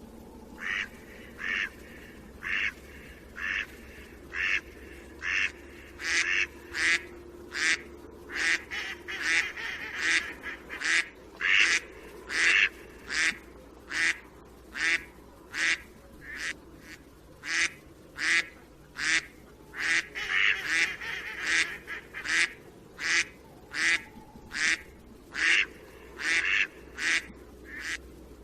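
Mallard quacking in a long, steady series of loud calls, spaced about a second apart at first and coming quicker in the middle.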